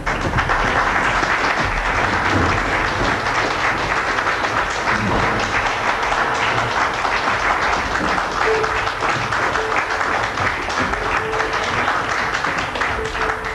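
Audience applauding: dense, steady clapping that fades near the end. A single held tone sounds on and off beneath it in the second half.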